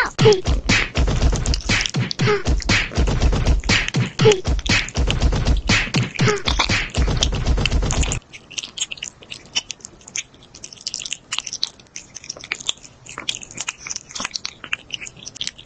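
A cat slurping up a long strand of raw minced meat, with wet sucking, smacking and chewing clicks. For about the first eight seconds it is loud and dense, with a thumping rhythm; then it drops suddenly to quieter, scattered wet smacks and sucks.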